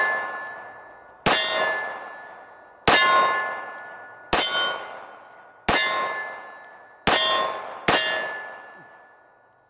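Six shots from a Colt 1911 MK IV Series 80 .45 ACP pistol, each followed by a steel target plate ringing and fading out over about a second; the last two shots come close together. The ring of a shot fired just before is still fading at the start.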